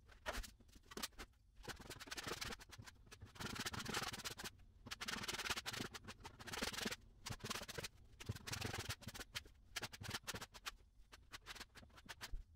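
A hand spreader scraping flooring adhesive across a plywood subfloor, sped up, so the strokes come as rapid, choppy scratching broken by short gaps.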